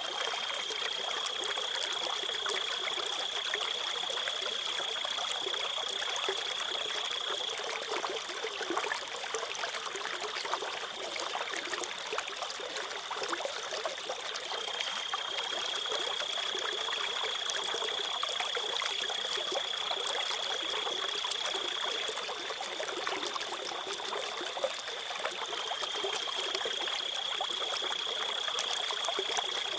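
Running water trickling steadily, with a cricket's continuous high trill over it. The trill drops out for several seconds twice, about a quarter of the way in and again past the two-thirds mark.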